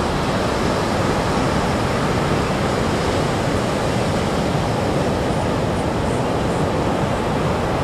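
Ocean surf: a steady, unbroken rush of waves breaking and washing in.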